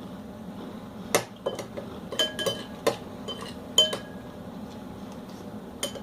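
Spoons clinking against cereal bowls while eating: a run of sharp, ringing clinks over about three seconds, then one more near the end.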